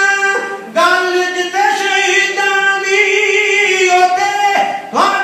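Men's voices singing long-held, high notes into microphones, in the style of a Sikh jatha, breaking briefly for breath less than a second in and again near the end.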